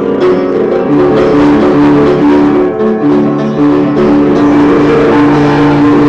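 Upright piano played with both hands: loud chords over held bass notes, changing every second or so.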